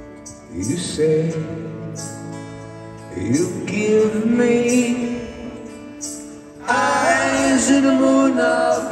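Live rock ballad: a male lead singer sings over strummed acoustic guitar and bass, three sung lines with the voice sliding up into the first two, the last line the loudest.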